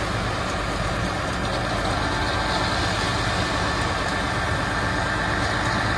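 Concrete mixer truck's diesel engine running steadily, a constant even drone with no change in speed.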